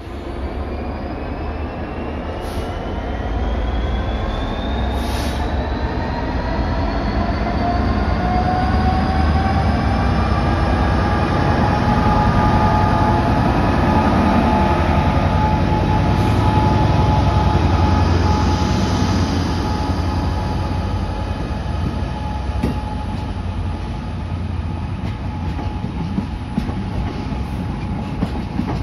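GB Railfreight Class 66 diesel locomotive running past close by, hauling a train of cement tank wagons. A high whine rises in pitch over the first several seconds and then holds steady. The sound is loudest as the locomotive passes, then eases to the rumble of the tank wagons rolling by.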